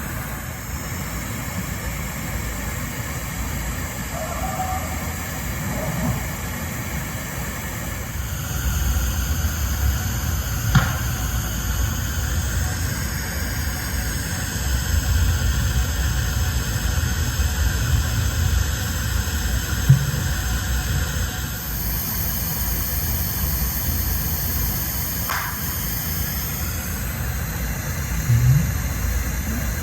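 Outdoor recorder ambience: a steady low rumble that swells about eight seconds in. Over it come two sharp knocks about eleven and twenty seconds in, a fainter one near twenty-five seconds, and a short dull thump near the end.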